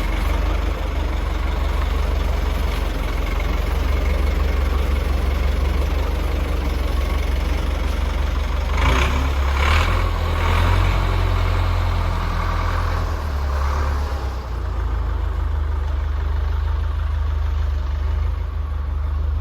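An engine idling steadily, with a brief louder burst of noise about nine to ten seconds in.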